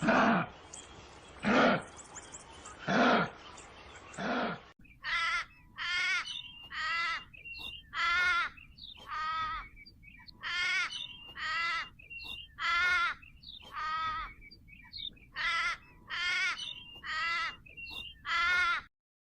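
Kangaroo vocalisations: first three harsh, breathy grunts about a second and a half apart. Then, from about five seconds in, a run of about eighteen short, rasping calls with a clear pitch, roughly one a second.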